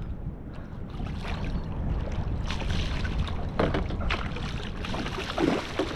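Large bluefish thrashing and splashing at the surface beside a boat in several irregular bursts, over a steady low wind rumble on the microphone.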